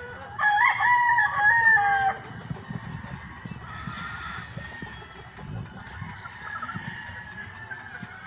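A rooster crows once, a loud call of under two seconds starting about half a second in. Hens cluck softly afterwards.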